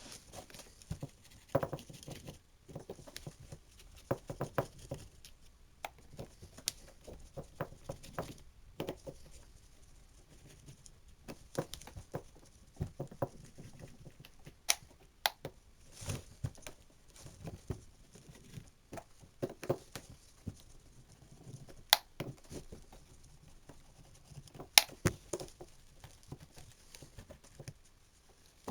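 Sped-up clicks, taps and clatter of a Ritm DEU-900 hammer drill being taken apart by hand: plastic housing and small metal parts knocked and set down at irregular intervals. Two sharp clicks near the end are the loudest.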